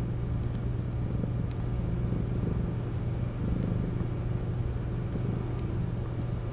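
Steady low rumbling hum at an even level, with no break or change.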